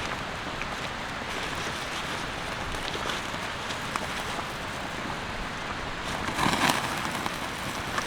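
Steady rain falling, with scattered single drops ticking and a louder brief rush about six and a half seconds in.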